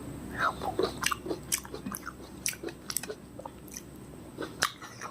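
Close-miked chewing and biting of fresh fruit: a string of irregular sharp mouth clicks and smacks, the loudest a little over four and a half seconds in.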